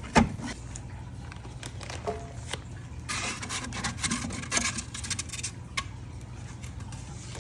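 Pizza oven parts and packaging being slid out of the box and handled: a sharp knock just after the start, then scraping and rustling with scattered clicks, busiest in the middle. A steady low hum lies underneath.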